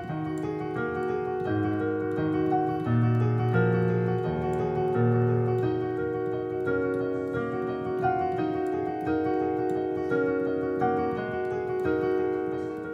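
Roland digital piano playing a flowing pattern of notes over held chords, with low bass notes sounding a few times in the first half.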